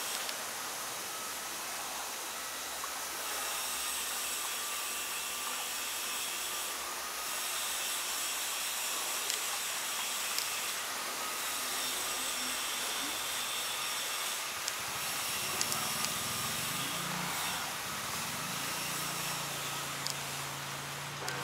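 Steady outdoor background hiss, with faint high thin tones coming and going and a low hum joining about fifteen seconds in.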